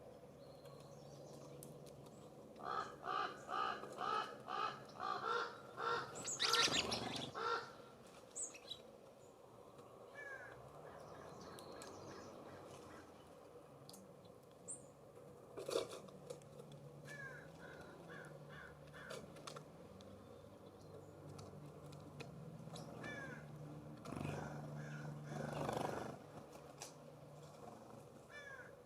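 California Scrub-Jay giving a quick series of about ten harsh, rasping calls, with another harsh call later. Short chip notes from small songbirds are scattered throughout, and there is a single sharp knock about halfway through.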